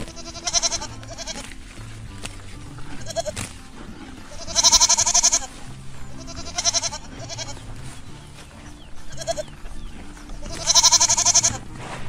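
Young kid goats bleating: a string of high, wavering bleats, with two longer, louder ones about four and a half seconds in and again near the end, over background music.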